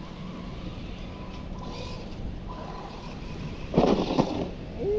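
Steady low rumble of road traffic, then a brief cluster of sharp knocks and clatter about four seconds in, as the RC car runs into its jump ramp. A short rising-and-falling tone follows near the end.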